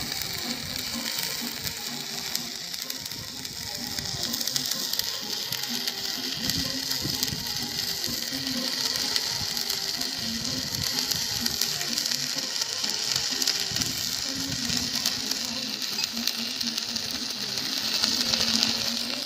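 Wire-feed (MIG) welding arc crackling and buzzing steadily as a bead is run along a square steel tube joint.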